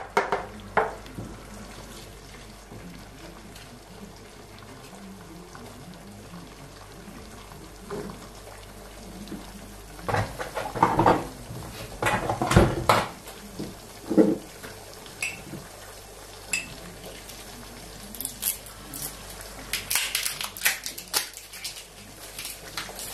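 Kitchen clatter of dishes and utensils: bursts of clinks and knocks about halfway through and again near the end, over a faint steady sizzle of eggs frying in butter in a nonstick pan.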